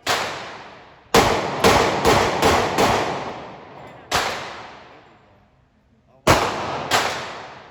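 Gunshots from a .40 caliber handgun: about nine shots, one at the start, a quick string of five about a second in, then three more spaced out. Each shot is followed by a long echoing decay.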